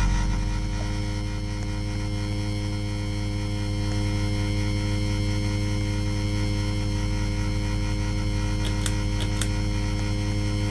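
Ceiling fan running with a steady motor hum and a fast, low pulsing. A few short clicks come about nine seconds in.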